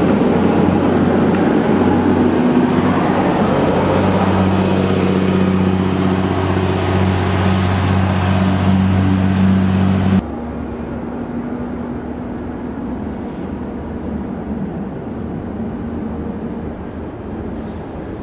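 A steady engine hum, like a motor vehicle running nearby, that cuts off suddenly about ten seconds in. A quieter, even outdoor noise is left after it.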